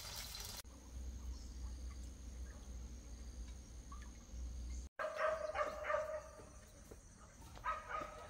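A wood fire crackling and hissing under a frying pan of egg for a moment, then a low rumble, then domestic fowl calling twice: a call lasting about a second around five seconds in and a shorter one near the end.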